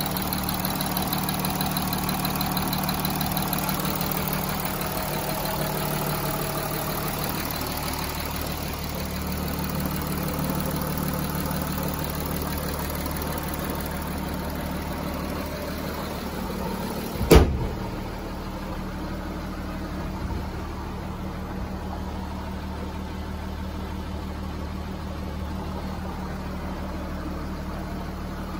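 Audi A6 3.0 TDI V6 diesel idling steadily after a cold start. About two-thirds of the way in there is a single loud thump as the bonnet is shut, and after it the idle is quieter and duller.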